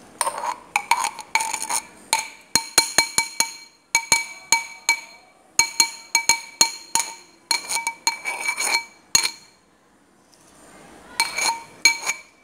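A metal utensil knocks and scrapes mashed banana out of an aluminium cup into a stainless steel mixing bowl, making runs of sharp, ringing metallic clinks, several a second at times. There is a pause of about two seconds near the end before the clinking starts again.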